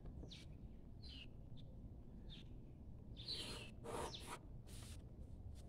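A bird calling in the background: short falling chirps repeated several times, faint. Light scratching of a pencil and drafting instruments on paper around the middle.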